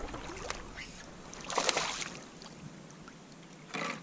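Water sloshing and splashing around a kayak, with a louder splash about one and a half seconds in and another short one near the end.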